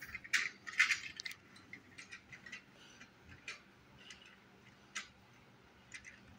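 Light clicks and rattles from a plastic toy train set on its track: a quick cluster of sharp clicks in the first second or so, then scattered softer ticks at uneven spacing.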